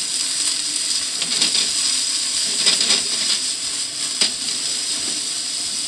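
Thick yakisoba noodles sizzling in a frying pan with olive oil and a little added water, tossed and loosened with chopsticks: a steady hiss broken by several short scrapes and clicks against the pan.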